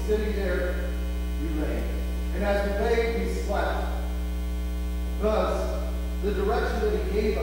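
Loud, steady electrical mains hum, with a man's voice coming through over it in short phrases.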